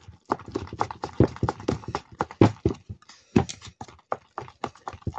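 Mashed potatoes being beaten by hand in a pot: a fast, rhythmic knocking of the utensil against the pot, about five strokes a second, cutting off suddenly at the end.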